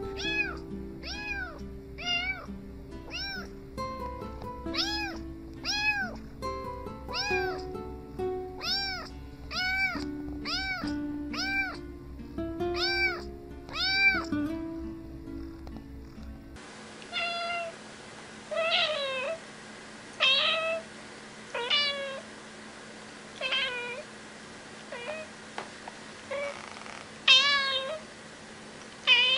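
A kitten meowing over and over in short calls, about one a second, with background music under it. About halfway through this gives way to an adult cat meowing repeatedly, each meow a second or two apart, with no music.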